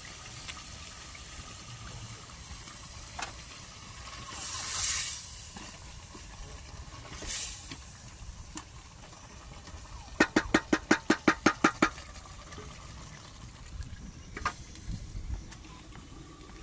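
Stew being cooked in an aluminium pot over a wood fire: two short hisses, then a quick run of about a dozen sharp knocks, roughly seven a second, lasting under two seconds.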